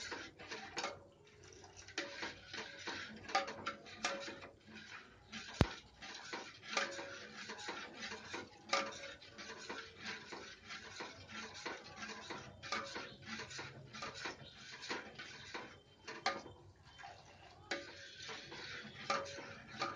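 A steel spoon stirring and scraping around a stainless steel pot of milk and custard, with constant small clinks and scrapes of metal on metal and one sharper click about five and a half seconds in. The stirring is kept up so the custard milk thickens without lumps.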